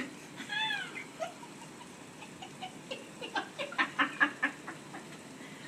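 A person's high-pitched laughter: a short rising-and-falling squeal about half a second in, then a quick run of giggles about three seconds in.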